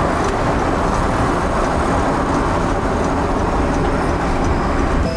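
Steady road and tyre noise heard inside the cabin of a Honda N-VAN kei van driving along a highway.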